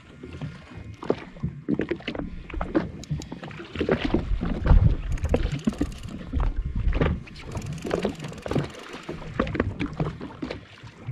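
Small waves lapping and slapping against the hull of a drifting jet ski, in irregular splashes and knocks.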